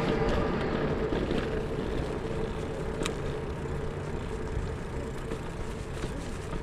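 Steady wind and road noise from a bicycle ride, picked up by an action camera's microphone, with a faint steady hum and one sharp click about three seconds in.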